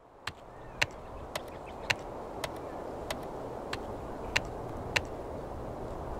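Keystroke-style click sound effect, one sharp click about every half second, nine in all, over a rushing hiss that swells up during the first two seconds and then holds steady.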